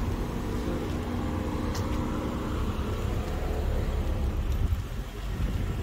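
Street traffic: a car engine running nearby, its steady hum fading about halfway through, over a constant low road rumble.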